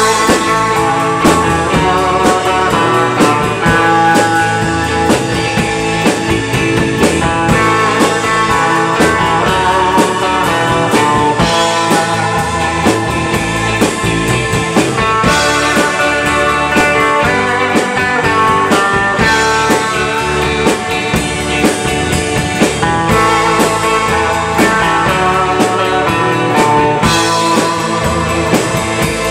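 Live rock band playing an instrumental passage: a Fender Stratocaster electric guitar takes the lead over drums, a second electric guitar and keyboards, with a steady drum beat throughout.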